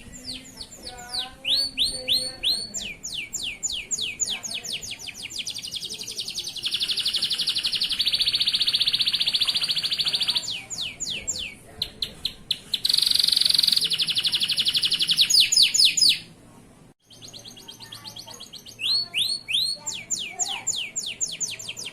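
Male domestic canary singing a long, fast song: runs of quickly repeated sweeping notes broken by two long, rapid trills. The song breaks off briefly about three-quarters of the way through, then resumes.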